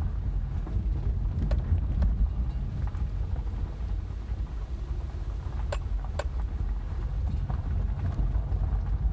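Low rumble inside a Subaru's cabin as it rolls over a rough gravel and dirt track, tyres and suspension working over the bumps. A few sharp clicks cut through, two of them close together about six seconds in.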